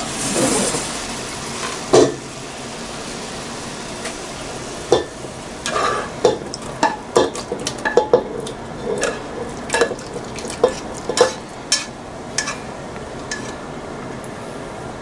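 Browned chicken pieces sizzling in hot oil in a frying pan, with a utensil repeatedly clicking and scraping against the pan as the pieces are lifted out and moved into a pot; the knocks come thickest in the middle.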